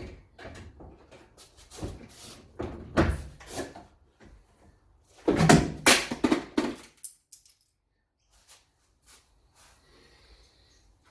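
A run of knocks and clatters from parts being handled, with the loudest burst of clattering about five and a half seconds in, then quiet.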